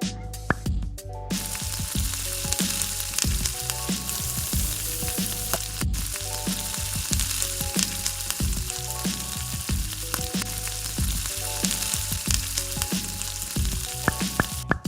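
Food sizzling as it fries in a hot pan, starting about a second in and breaking off just before the end, with a brief gap midway. Light background music plays throughout.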